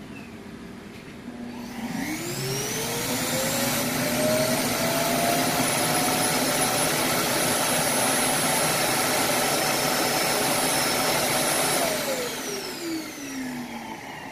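iRobot Roomba i7+ Clean Base suction motor spinning up with a rising whine, about two seconds in. It runs loud and steady for about ten seconds as the base empties the docked robot's dust bin, then winds down with a falling whine near the end.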